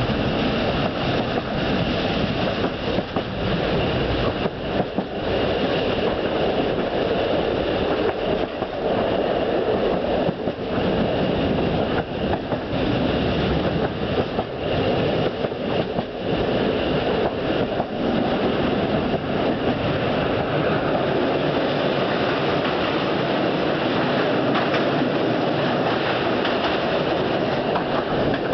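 Train running along the line, heard from aboard: a steady rumble of wheels on rails with occasional clicks.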